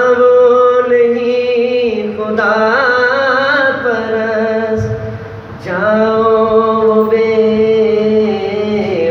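A man singing an Urdu ghazal into a microphone, holding long ornamented notes in two phrases with a breath between them about five seconds in.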